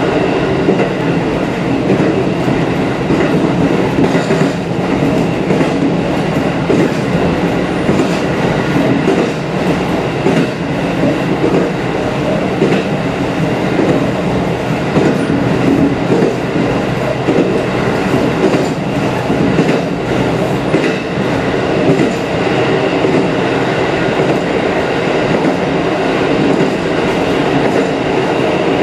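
KiHa 54 diesel railcar under way, heard from inside its rear cab: a steady diesel engine drone over the noise of wheels rolling on the rails, with faint clicks from rail joints scattered through it.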